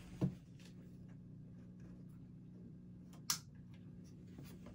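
Faint steady low hum from a small home aquarium, with a soft thump just after the start and one sharp click of the tank's plastic hood lid being handled about three seconds in.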